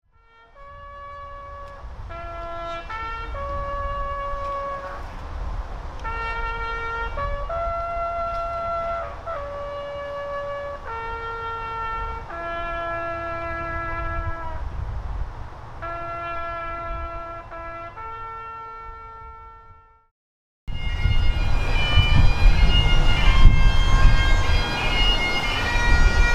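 A solo wind instrument plays a slow melody, one held note at a time, over a low rumbling noise. After a short break about 20 seconds in, louder music with several tones sounding at once begins.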